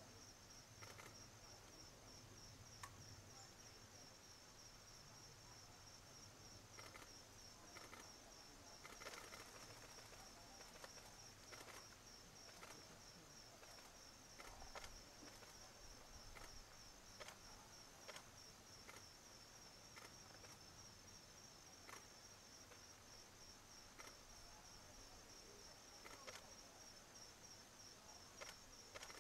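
Faint, steady, high-pitched insect trill, evenly pulsed, with scattered faint clicks.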